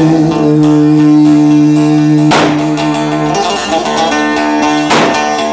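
Turkish bozlak folk music on the bağlama, the long-necked Turkish lute: a long held note for the first three seconds or so, then two sharp strummed strokes on the bağlama about two and a half seconds apart.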